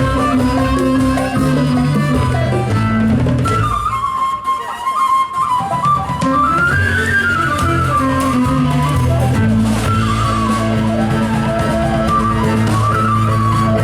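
A live band playing: a high, ornamented melody line over bass and drums. About four seconds in, the bass and drums drop away and the melody carries on nearly alone. Just past the halfway point the full band comes back in with a steady bass line.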